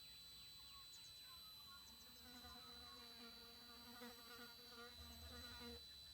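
A flying insect buzzes close by for about four seconds, starting about two seconds in. Underneath is the faint, steady, high-pitched squeal of a TriStar TS-MPPT-60 solar charge controller.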